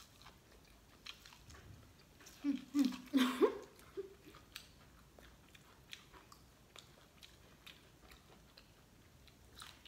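Corn on the cob being bitten and chewed close to the microphone: scattered small crunching clicks of kernels bitten off and chewed. About three seconds in there is a brief muffled voice sound, the loudest moment.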